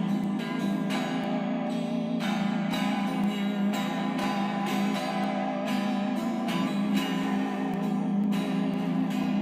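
Music: plucked string notes struck every second or so over a steady low drone.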